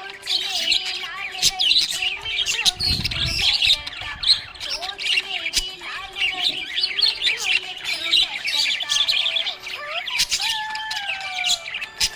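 Budgerigars chirping and warbling in a dense, continuous chatter of quick high chirps, with gliding whistled notes, and a short low rumble about three seconds in.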